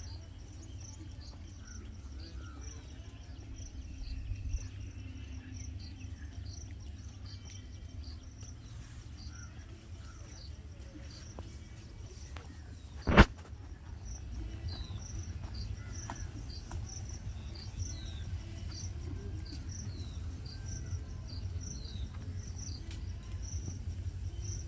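Insects chirping in a steady, evenly repeating high-pitched pattern over a low, constant rumble, with one sharp knock about thirteen seconds in.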